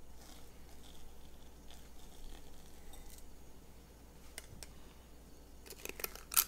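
Faint room tone, then a few sharp metallic clicks near the end, the loudest just before it ends. The clicks come from a stainless steel spring-lever cookie scoop being squeezed to release a mound of meringue onto a silicone mat on a metal baking tray.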